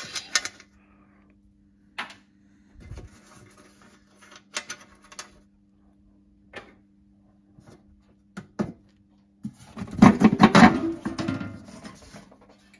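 Air cleaner on a 1958 Cadillac being taken apart by hand: scattered light clicks and taps as the centre fastener is undone, then a louder clatter and scraping of the metal lid being lifted off near the end.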